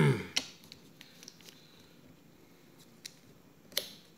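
A few small, sharp clicks and taps of fingers and a thin metal pry tool working on the internal parts of an opened MacBook Pro laptop, with the strongest click a little before the end.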